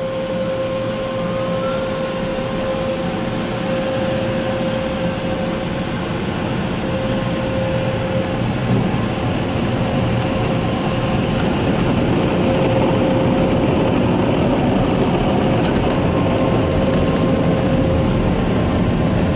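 Steady rushing hum of car wash machinery and moving air as the car leaves the touchless wash, with a faint steady whine over it; it grows a little louder about halfway through.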